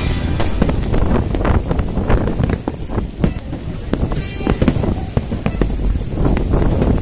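Aerial fireworks bursting in an irregular series of sharp bangs, with wind buffeting the microphone throughout.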